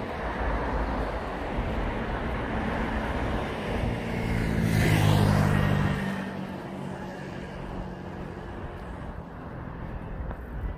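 A motor vehicle drives past about four seconds in: its engine hum and tyre noise swell and fade within about two seconds, over a steady rumble of street noise.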